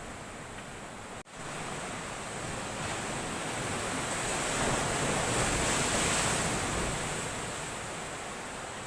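Sea surf breaking and washing on a rocky shore, swelling to a peak about midway and easing off again; the waves are big.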